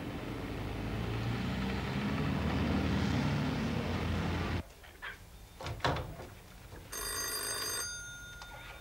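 Low rumble of passing traffic, growing louder, that cuts off abruptly about halfway through. A few sharp knocks follow, then a telephone bell rings once, briefly, near the end.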